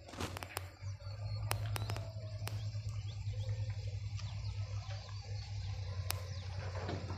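Birds chirping faintly over a steady low rumble, with a few sharp clicks in the first few seconds and one more near the end.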